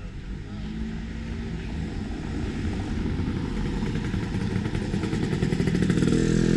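Motor vehicle engine running, growing steadily louder over several seconds with a low, even drone.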